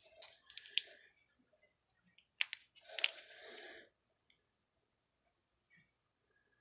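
Pokémon card packaging being handled: sharp clicks and crinkles in two short bursts, about a second in and again from about two and a half to four seconds in.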